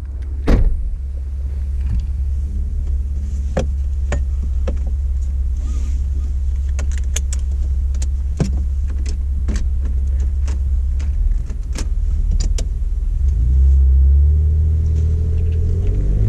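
2009 Jeep Wrangler JK's engine rumbling low and steady, heard from inside the cabin, with scattered sharp clicks and knocks. Near the end the engine gets louder and its pitch rises and falls.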